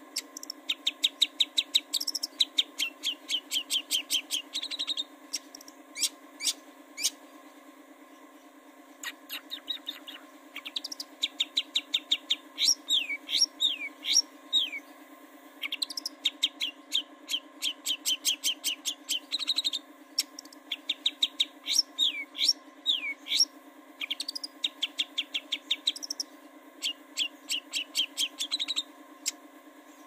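Long-tailed shrike (cendet) singing: fast runs of sharp, repeated chirping notes lasting a few seconds each, broken by short pauses, with some notes sliding down in pitch.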